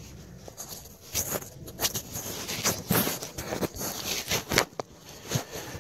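Irregular rustling and knocking of a camera being handled and moved about, with sharp scrapes and taps starting about a second in.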